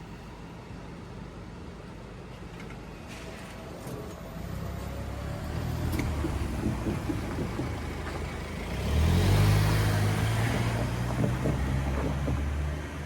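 Road vehicle engines running and passing close by, building up from about four seconds in and loudest from about nine seconds in, with a steady low engine hum under the rumble.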